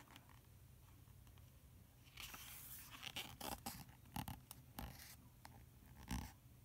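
Faint rustle and a few soft taps of a picture book's paper pages being turned and handled, over a faint low hum.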